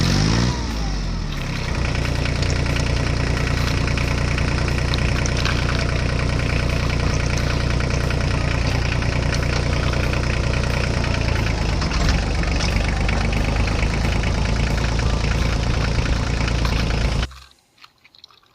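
Engine idling steadily, cutting off suddenly near the end.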